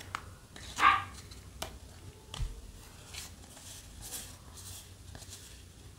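Yu-Gi-Oh! trading cards being handled and slid over one another: soft swishes and light clicks, the loudest swish about a second in.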